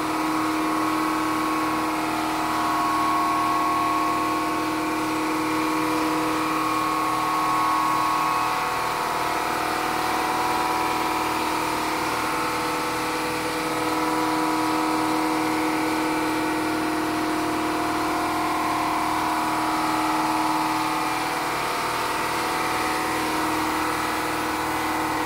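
A 29-gallon piston air compressor running steadily, with a fast, even pulsing under a steady hum. It comes on just before this point, as when it cycles to refill its tank.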